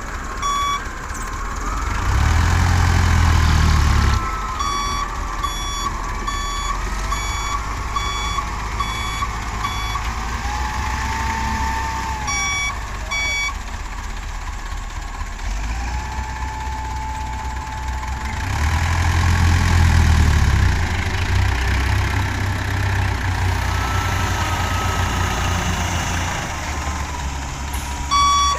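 Mitsubishi diesel dump truck's reversing alarm beeping about twice a second in several runs, over its engine running. The engine revs up twice, about two seconds in and again past the middle.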